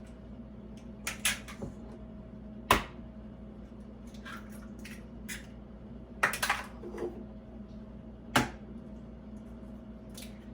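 Bowls and utensils being handled on a kitchen counter: a few sharp knocks and clinks, spread out, over a steady low hum.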